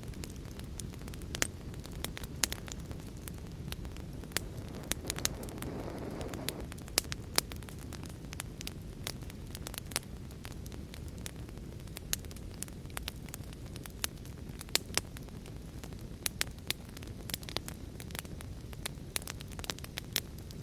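Wood fire crackling, with many sharp irregular pops and snaps over a low steady rumble of the burning. A brief hiss comes about five to six seconds in.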